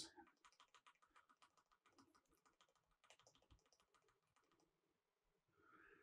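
Near silence with very faint, rapid, evenly spaced taps on a computer keyboard: a key pressed over and over to get into the motherboard BIOS at first boot.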